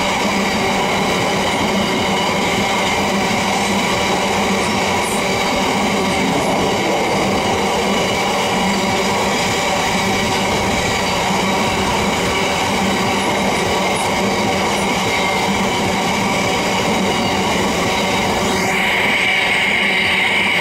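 Drax biomass hopper wagons of a freight train rolling past at speed: a continuous loud rumble and rattle of steel wheels on rail, with steady ringing tones over it. One of these grows louder near the end.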